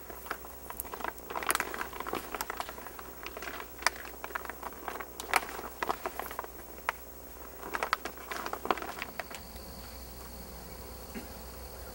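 Greenhouse plastic film crinkling and rustling, with irregular sharp clicks, as zigzag wiggle wire is pressed by hand into the lock channel to hold the roof film tight. After about nine seconds the crackling stops, leaving a steady faint thin high whine.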